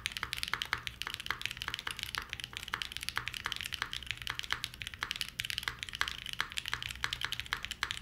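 Fast, continuous typing on a Mode Envoy 65% mechanical keyboard built with a copper plate and long-pole London Fog switches: a steady run of keystrokes, several per second.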